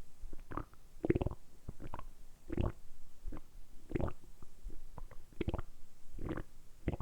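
A person's stomach rumbling on purpose, worked by the abdominal muscles: a quick string of short gurgles, about two a second.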